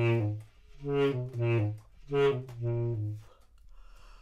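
Basset horn playing about five short, low notes in quick groups, then falling quiet for the last second.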